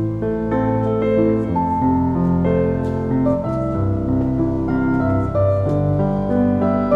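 Background instrumental music led by piano, held chords and a melody over a steady low bass.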